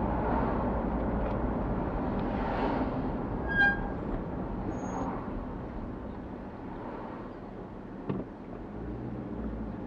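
Steady road and engine noise heard from inside a moving car, easing off gradually, with a short high beep about three and a half seconds in and a small click near the end.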